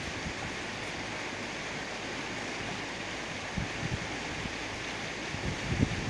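Steady outdoor rushing noise, with a few short low buffets of wind on the microphone a little past halfway and again near the end.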